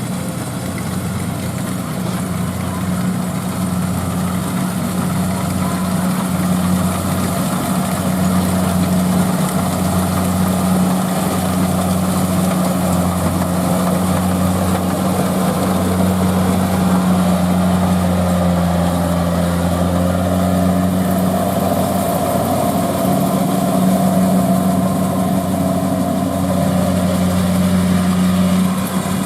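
Rice combine harvester's diesel engine running steadily at working speed, a constant low drone with its note dipping briefly about two-thirds of the way through.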